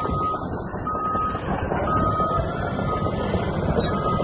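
Construction machine's backup alarm beeping about once a second, a single high beep, over the steady rumble of heavy machinery.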